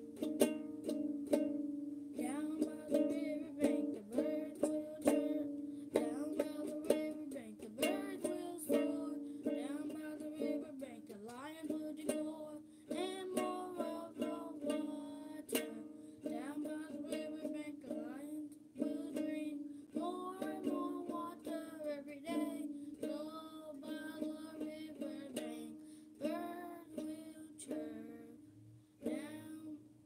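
Ukulele strummed in steady chords, with a young girl singing the melody over it from about two seconds in. The playing thins out and fades near the end.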